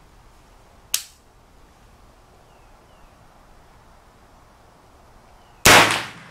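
A single shot from a CMMG MK9T 9mm carbine near the end, the loudest sound, with a short ringing echo, after a fainter sharp crack about a second in.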